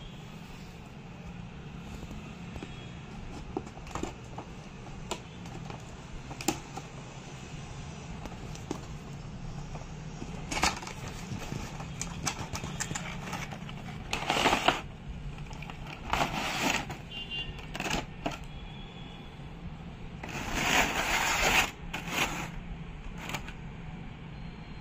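A cardboard toy box being opened and handled, its flaps and the clear plastic tray inside rustling and crinkling in several bursts, the longest near the end, with scattered small clicks and taps between them. A steady low hum runs underneath.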